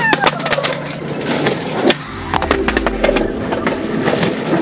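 Skateboard knocking and clattering on concrete steps, with repeated sharp hits of the wooden deck and wheels on the stairs. A low rumble comes in about two seconds in.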